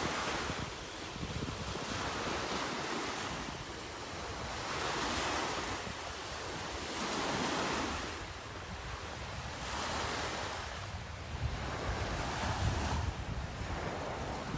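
Small waves breaking and washing up on a sandy beach, the surf swelling and easing every couple of seconds. Wind buffets the microphone with a low rumble, more toward the end.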